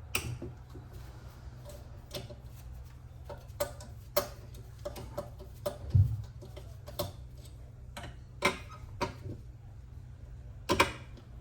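Irregular metal clicks and taps of a hand tool working a screw loose on a key cutting machine, with a heavier knock about six seconds in and a double click near the end, over a steady low hum.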